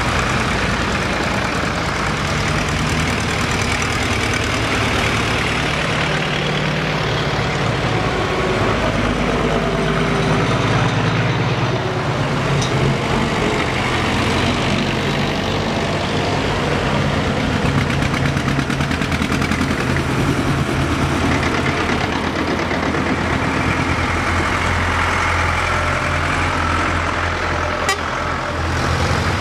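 A procession of vintage farm tractors drives past one after another, their engines running steadily. The engine note shifts as each tractor goes by.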